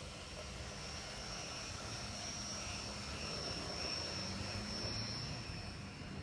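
G-scale model train (USA Trains New York Central PA-1/PB-1 set, run on analog power) rolling past on garden track: wheels rumbling on the rails under a steady high whine. It grows louder as the passenger cars pass, about four to five seconds in, then eases.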